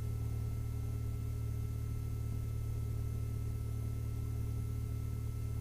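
The fuel-injected, four-cylinder Lycoming IO-360-A1A engine of a 1967 Mooney M-20F running steadily at low power while it warms up before the run-up. Inside the cabin it is heard as an even, low drone.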